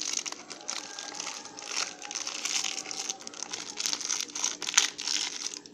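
Crinkling and crackling of plastic candy wrapping being handled, a busy run of sharp crackles with the loudest one near the end.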